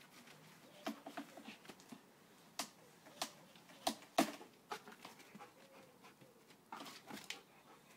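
Belgian Malinois jumping up against a tree trunk: scattered scratches and knocks of its paws and claws on the bark, with faint whines.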